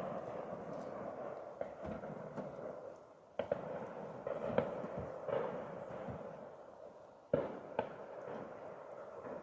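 Distant shotgun shots: about four sharp reports, the loudest about three and a half and seven seconds in, each followed by a short echoing tail.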